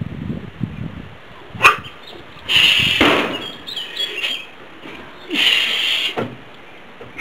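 Climbing on hanging wooden pole-stick grips: a sharp wooden knock about a second and a half in, then two short hissing bursts of forced breath near three and six seconds as the climber hangs and pulls up.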